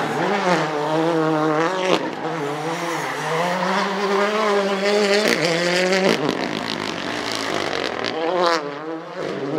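Ford Fiesta Rally2's turbocharged four-cylinder engine being driven hard, its pitch rising and falling over and over as the driver accelerates and lifts, with a couple of sharp drops a little past halfway.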